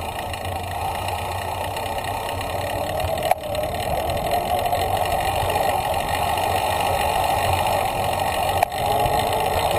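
Wind and rolling noise picked up by an action camera on a moving bicycle: a steady rushing that grows a little louder as the bike speeds up, with two short clicks, one about a third of the way in and one near the end.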